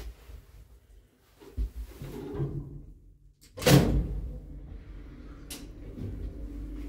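A 1971 ZREMB 'Osiedlowy' passenger lift starting off after its ground-floor button is pressed: a loud clunk about three and a half seconds in, then a steady low hum as the car travels.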